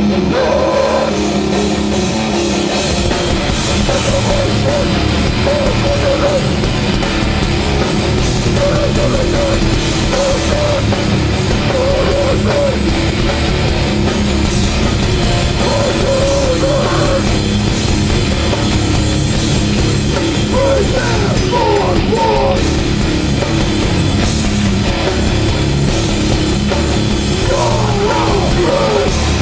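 Loud live hardcore band playing: distorted electric guitars, bass and a pounding drum kit, dense and without a break.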